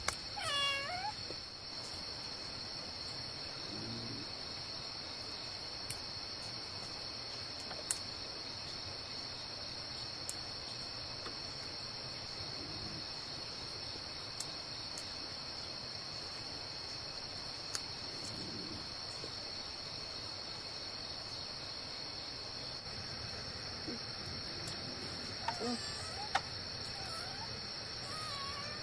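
Steady high-pitched insect drone, like crickets, with a few scattered sharp clicks. Short pitched animal calls, rising and falling, come right at the start and again near the end.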